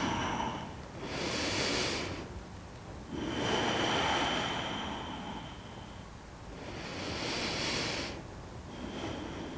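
Slow, deep audible breathing in and out, four swells of breath, each a second or two long, as breaths are taken in a held yoga pose.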